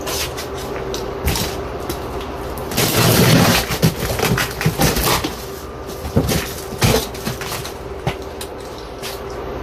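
A large cardboard box being opened and its contents handled: cardboard rustling and scraping, a louder rough stretch about three seconds in, and scattered knocks and thumps.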